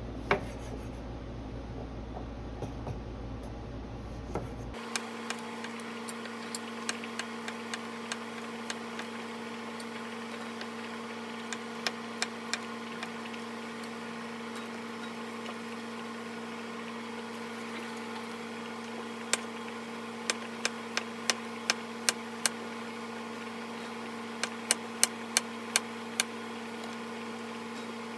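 A steady electric hum from a kitchen appliance, with sharp, irregular taps and clicks over it that come in quick runs about two-thirds of the way through and again near the end.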